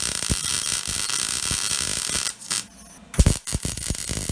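MIG welding arc crackling steadily as a stainless steel bung is welded onto a mild-steel exhaust pipe. The bead stops about two seconds in and the arc strikes again about a second later.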